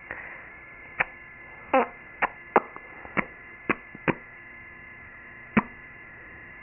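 A series of about eight short, sharp clicks at uneven intervals, over a faint steady hum.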